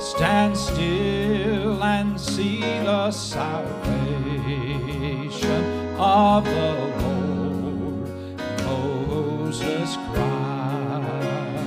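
A man singing a gospel solo into a microphone, his voice wavering with vibrato over an instrumental accompaniment with a steady bass line.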